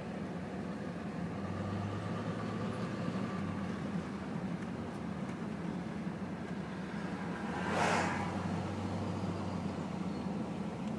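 Car running on the road, heard from inside the cabin: a steady low engine hum with road noise, and a brief whoosh about eight seconds in.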